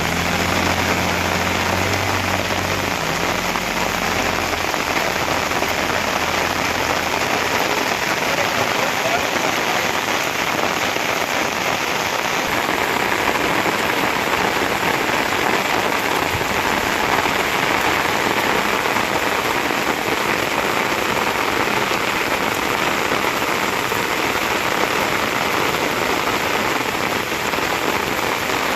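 Steady, fairly loud rain falling, an even hiss with no let-up. A low engine hum fades out in the first few seconds.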